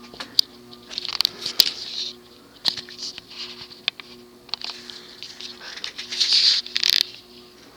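Cast-iron spinner motor of a Mistralaire (TAT) ceiling fan humming steadily on a solid-state variable-speed control, a little loud, just after being turned up a notch. Intermittent rustling and clicking sounds over it, loudest near the end.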